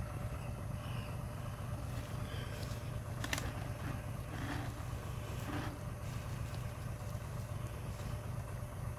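Truck engine idling steadily, a low hum, with a sharp click about three seconds in.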